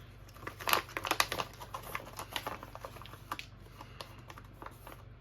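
A spoon scraping the last of an MRE chicken burrito bowl main out of its foil retort pouch: a run of quick clicks and crinkles, busiest about a second in, then lighter scrapes.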